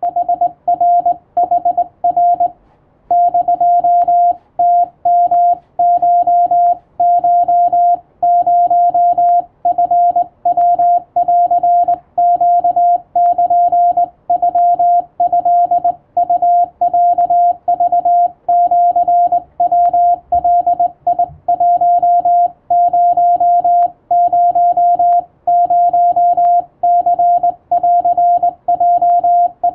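Japanese (wabun) Morse code sent by hand on a telegraph key, heard as one steady beeping tone keyed into short and long marks, with a brief pause about two and a half seconds in. The message reads that the channel's subscribers have passed 1,000.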